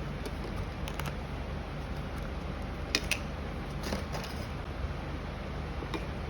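Packaging being handled: a few sharp clicks and crinkles, the two loudest close together about three seconds in, over a steady background hum.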